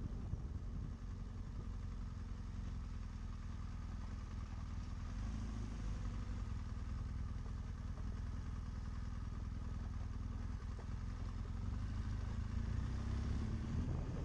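BMW GS adventure motorcycle engine running steadily at low revs as the bike rolls slowly along a rough lane.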